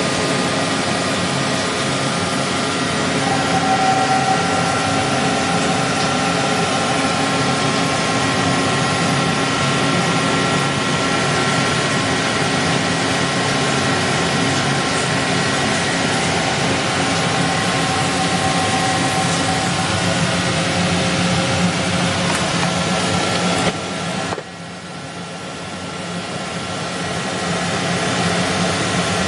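Emco Turn 220 CNC lathe running: a steady machine whine with several held tones over a noisy hum. Late on the higher part of the sound cuts out abruptly, then the level builds back up over a few seconds.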